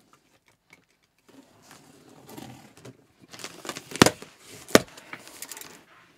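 Scissors cutting into a cardboard speaker box, with rustling and scraping of the cardboard and tape. Two sharp clicks come about four and five seconds in.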